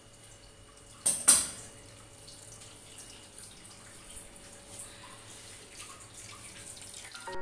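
Starchy washing water poured off grated potatoes from a plastic bowl into a steel tray: two quick loud splashes about a second in, then faint drips and trickles.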